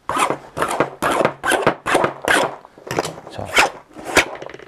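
Utility knife blade slashing and scraping repeatedly across the fabric of a tool pouch, about two or three rasping strokes a second. It is a cut test: the fabric scuffs but does not cut through.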